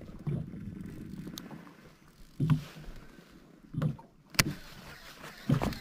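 Water slapping against the hull of a small boat in short, irregular low thuds, with a sharp click about four seconds in.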